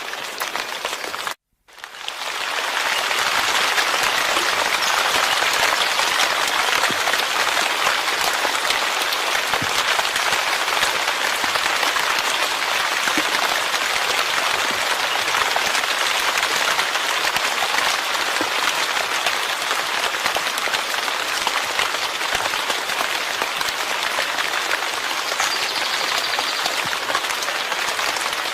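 Steady rain falling, a dense even hiss of drops. It cuts out for a moment about a second and a half in, then comes back up within about a second and runs on unchanged.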